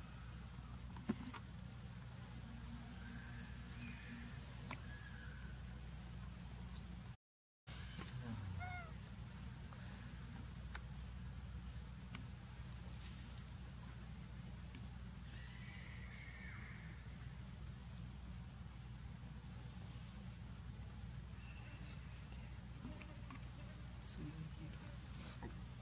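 Steady high-pitched insect trill over a low outdoor hum, with a few faint short animal calls scattered through it; the sound cuts out for a moment about seven seconds in.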